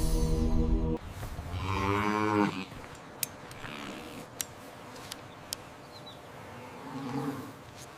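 A head of cattle moos once, a loud, long call that drops in pitch at its end, after background music cuts off about a second in. A few faint sharp clicks follow, then a quieter low call near the end.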